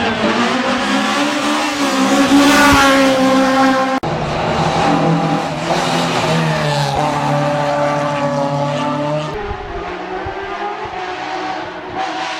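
Rally car engines at high revs, pitch climbing and falling with throttle and gear changes, over a rushing noise. The sound changes abruptly twice, about four seconds in and again past nine seconds, as one car gives way to another.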